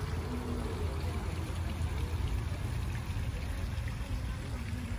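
Water from a tiered garden fountain splashing steadily into its basin, under a low rumble.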